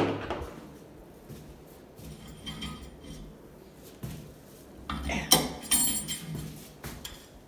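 Metal clanks and clinks from handling a bare engine block on a steel engine stand: one sharp knock at the start, a short rattle about two and a half seconds in, and a louder run of ringing clanks about five to six and a half seconds in.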